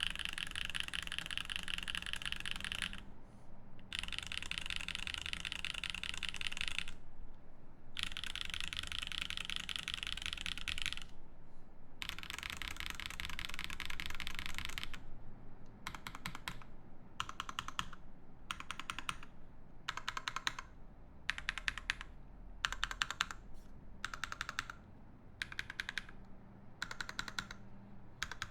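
Mechanical keyboard typing: lubed Moyu Black linear switches in an aluminium plate, with GMK keycaps. Fast continuous typing in four runs broken by short pauses, then from about halfway separate short clusters of keystrokes, a little more than one a second.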